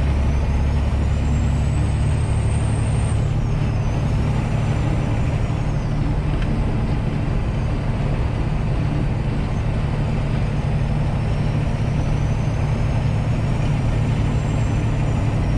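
Semi truck's diesel engine running steadily under road noise while driving, with a faint high whine that slowly rises and falls.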